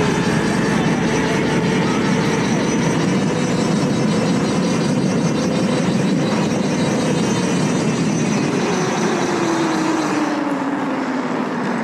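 Riding noise from a mountain bike on the trail: steady wind rush and tyre roar, with a faint whine that drops in pitch over the last few seconds as the bike slows.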